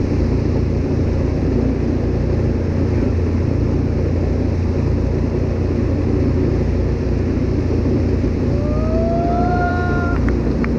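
Wakesurf boat's inboard engine running steadily under way: a loud, even, low drone. A short rising high-pitched call is heard over it near the end.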